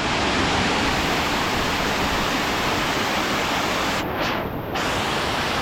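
Tad Hang waterfall rushing, a steady loud roar of falling water; its higher hiss drops out briefly about four seconds in.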